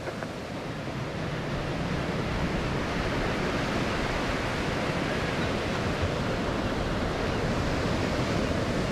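Steady rushing noise of ocean surf and wind on the microphone, slowly growing louder.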